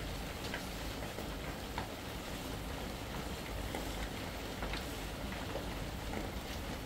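Steady rain falling: an even hiss with scattered sharp drop hits.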